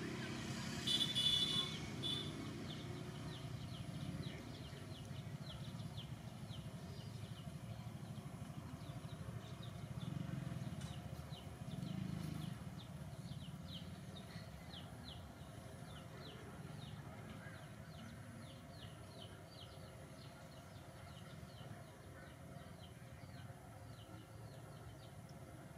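Outdoor ambience of small birds chirping: a loud cluster of high chirps about a second in, then quick, short chirps repeating throughout over a steady low rumble.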